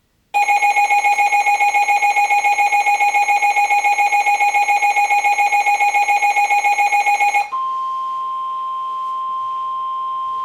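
Weather radio alert tones sounding for a new severe thunderstorm warning. A loud, buzzy, rapidly pulsing alarm tone lasts about seven seconds, then gives way to a steady single-pitch tone, the weather radio's warning alarm tone.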